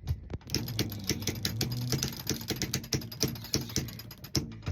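Sailboat winch clicking rapidly as it is cranked by hand under load, hoisting a person up the mast in a bosun's chair. The clicking stops shortly before the end.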